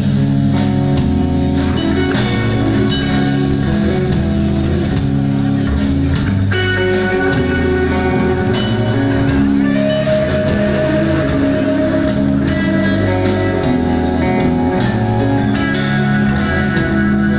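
Rock band playing live: electric guitars over a drum kit, loud and steady.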